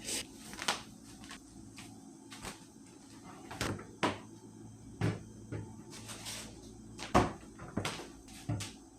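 Kitchen things being handled: about a dozen irregular knocks and clicks of dishes, lids or utensils over a low steady background, the loudest a sharp knock about seven seconds in.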